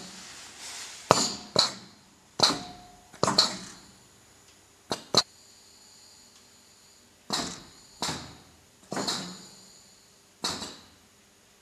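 Double-blade hamburger bun slicing machine working: about ten short, sharp hisses at uneven intervals, each dying away quickly, with a faint steady hum in the second half.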